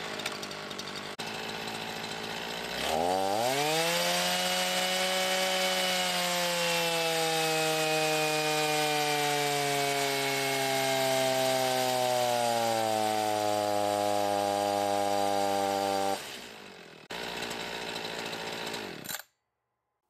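Echo CS-501P 50cc two-stroke chainsaw engine running on a chainsaw dyno. It idles, then about three seconds in it is opened to full throttle and held there for about thirteen seconds, its revs sinking slowly under the dyno's load. It then drops back and stops about a second before the end.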